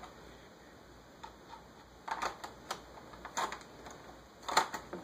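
Irregular sharp plastic clicks and knocks from a laptop's CD-ROM drive being handled and fitted into its bay, starting about two seconds in.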